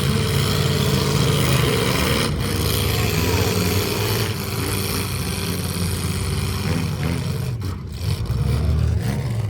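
A motor vehicle's engine running and revving.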